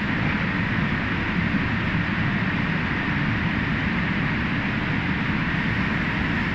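Tunnel car wash machinery running: a steady, even rushing noise with no breaks or distinct knocks.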